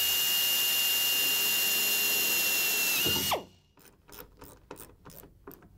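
Electric hand drill running steadily with a high whine as it bores through a metal mounting plate. The pitch dips briefly and the motor winds down and stops about three seconds in, and a few faint clicks follow.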